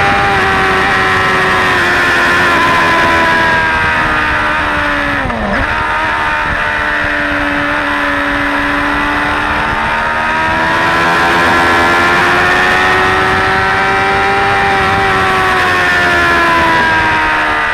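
Suzuki GSX-R600 K4's inline-four engine heard from onboard at track speed. Its note falls over the first few seconds as the bike slows for a corner, with a sudden dip about five seconds in. It then stays low and rises slowly as the bike accelerates out, easing off again near the end.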